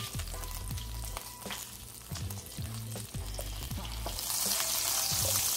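Butter melting and sizzling in a hot skillet of pork drippings. The sizzle gets louder about four seconds in, when a wooden spoon starts stirring the butter around the pan.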